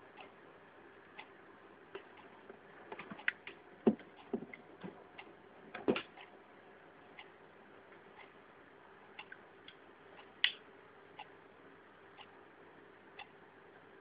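Faint ticking about once a second, with a few louder knocks and clicks of handling between about three and six seconds in and once more near ten and a half seconds, as a USB WiFi adapter is being connected to a laptop.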